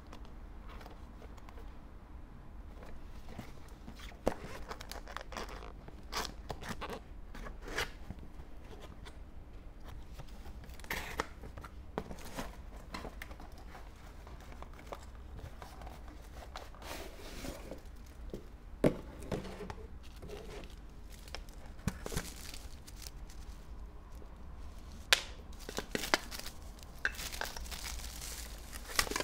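Unboxing handling noise: cardboard packaging scraped, flapped open and torn in short irregular bursts, then plastic wrapping crinkling around nested aluminium camping pots in a mesh bag near the end.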